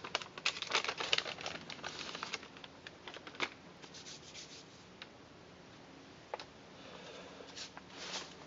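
Hands rubbing together and handling a crinkly bag: a dense scratchy rustle for about the first two and a half seconds, then scattered short rubs and a few sharp ticks, with more rustling near the end.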